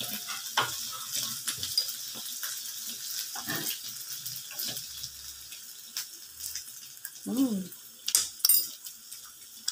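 Thick biko (glutinous rice cooked down in coconut milk) sizzling in a pan as a metal spatula stirs and scrapes it, with frequent clicks of the spatula against the pan. A few sharp, loud knocks come near the end.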